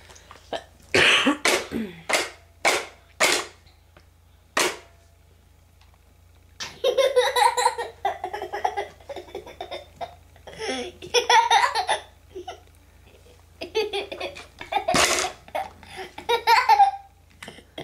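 A young boy laughing in bursts: a few short separate ones in the first few seconds, then longer runs of laughter through the second half.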